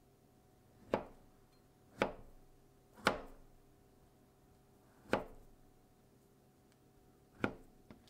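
A kitchen knife slicing through a peeled avocado, the blade knocking on the cutting board five times at uneven intervals.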